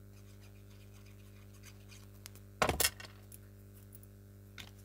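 A short clinking rattle of small hard objects being handled, about two and a half seconds in, with a few faint clicks around it, over a low steady hum.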